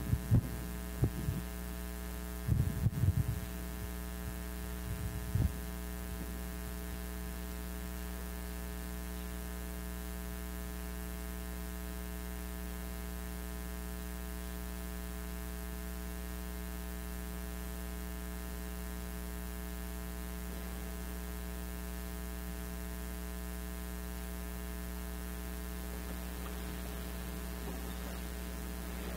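Steady electrical mains hum with a stack of evenly spaced tones, with a few short knocks in the first six seconds.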